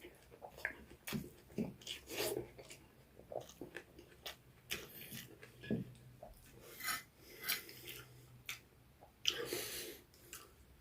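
Close-up eating sounds: cutlery scraping and clicking on a plate amid chewing, as a string of short scrapes and taps, with a longer rushing noise near the end.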